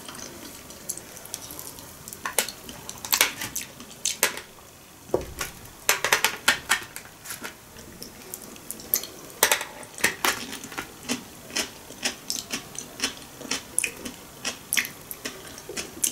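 Close-up eating sounds: sushi rolls being chewed, with chopsticks tapping and picking at a plastic takeaway tray. Irregular sharp clicks and crackles, bunched in a few busier spells.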